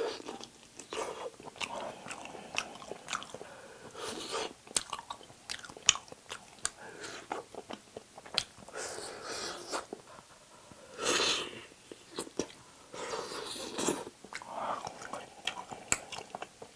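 Close-miked mouth sounds of eating braised spicy chicken: wet chewing and smacking with many sharp little clicks, and a few longer, louder bursts of chewing partway through.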